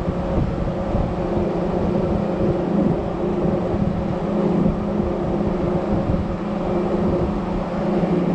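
Steady hum of seed corn plant machinery, fans and motors running at one constant pitch, over a low, uneven rumble of wind on the microphone.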